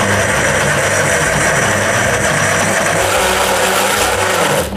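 Electric jug blender running steadily, grinding bread crumbs, onion and garlic into a mince for meatballs, then switched off suddenly near the end.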